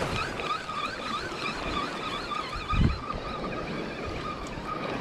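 Penn spinning reel being cranked to bring in a hooked fish, its gears giving a faint whine that wavers up and down in pitch over and over with the handle turns, over wind and surf noise. A single low thump comes just before the middle.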